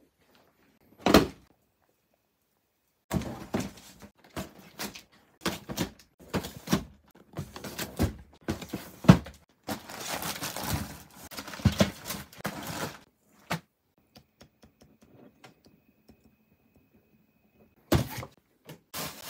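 Cardboard model-kit boxes handled and packed into a shipping carton: knocks and thuds of boxes being set down, with rustling of plastic packaging. One knock comes about a second in, then a busy stretch of knocks and rustling, and another knock near the end.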